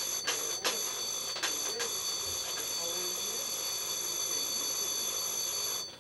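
A loud, steady, high-pitched ringing, with a few sharp clicks in the first two seconds; it stops abruptly near the end.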